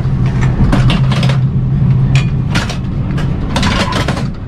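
Passenger train sleeper carriage interior: a steady low drone with irregular knocks and rattles over it.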